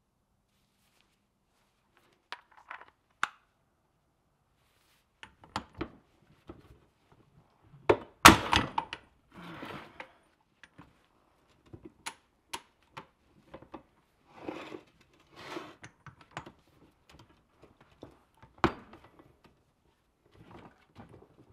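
Hand tools working on an old Wright screw hoist: scattered metal clicks, clinks and knocks of a wrench and parts against the hoist and the steel bench top, with a few short rattling, scraping stretches. The loudest knock comes about eight seconds in.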